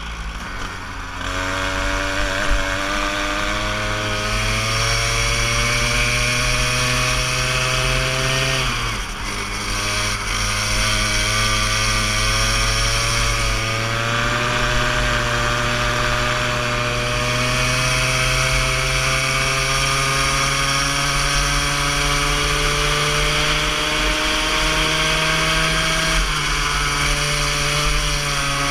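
Go-kart engine heard from the driver's seat, its pitch climbing steadily as the kart accelerates. The pitch drops sharply about nine seconds in and again a couple of seconds before the end as the throttle is lifted for corners, then climbs again.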